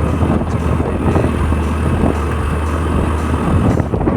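Old-model Yamaha ZR scooter's engine running under way on a rough uphill road: a steady low drone under rough, rumbling ride noise.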